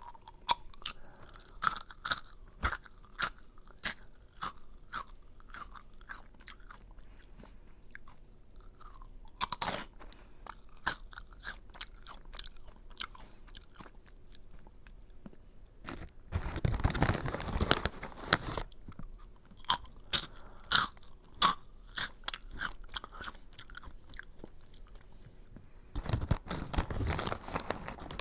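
Close-up chewing of a crunchy curry-flavoured snack (Aji Curry): sharp crunches one to two a second, with two louder, denser stretches of crunching about two-thirds of the way in and near the end, like fresh bites.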